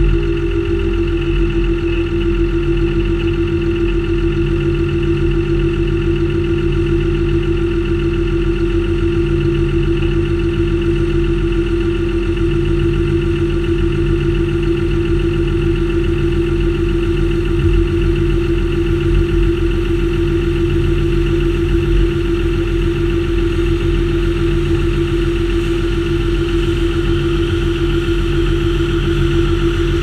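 John Deere 6930 Premium tractor's six-cylinder diesel running steadily at a constant speed, a low rumble with a steady hum on top, heard close up from a mount on the tractor. A higher mechanical noise swells near the end as a Claas combine harvester pulls alongside.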